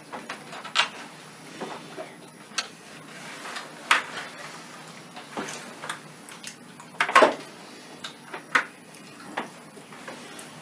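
Scattered light clinks and taps of plates and a spoon against a wooden tabletop while slices of cheesecake are picked up and eaten by hand, the loudest about two-thirds of the way through.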